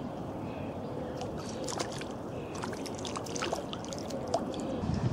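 A fish thrashing and splashing at the water's surface in shallow water: a quick, irregular run of splashes starting about a second in.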